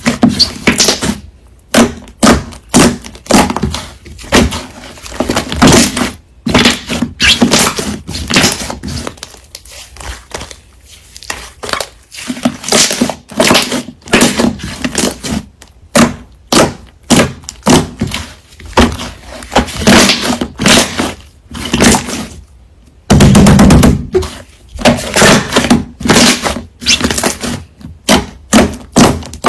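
Construction-site noise: a rapid, irregular series of loud bangs and clattering impacts over a steady low hum, with one continuous loud stretch of about a second and a half near the end.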